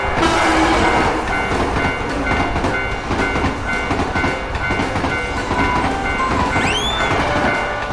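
Train running past a railroad crossing: a loud, steady rumble and wheel clatter. Under it the crossing bell keeps ringing, a few dings a second. Near the end a short whistle rises and falls.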